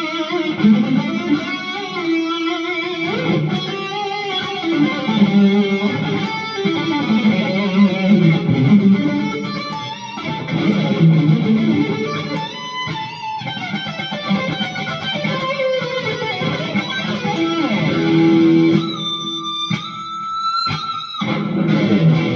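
ESP LTD SN-1000 electric guitar playing a lead solo: quick runs of notes, ending with a few high sustained notes held near the end.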